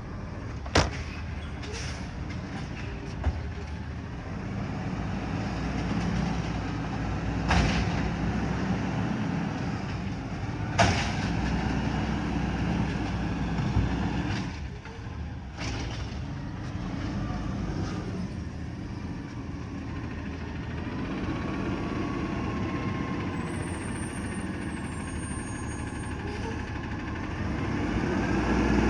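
Garbage truck running while it collects trash bins, with loud bangs about 1, 7.5 and 11 seconds in and several smaller knocks. A wavering whine runs through the last third.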